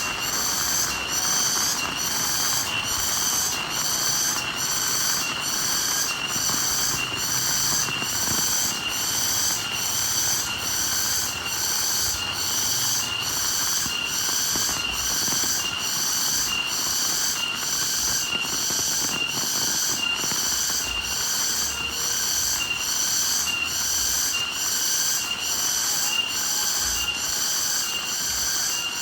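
Steady rain falling, with a rhythmic high-pitched pulsing chirp repeating evenly, well under a second apart.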